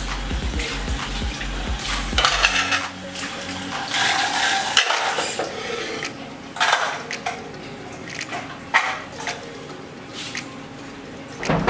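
Dishes and an aluminium pot being washed by hand: plates and pots clatter and knock against each other, with scrubbing between the knocks.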